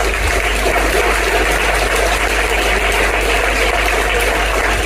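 Steady, loud rushing noise with a low hum underneath, like running water or a hissing sound system, with no speech over it.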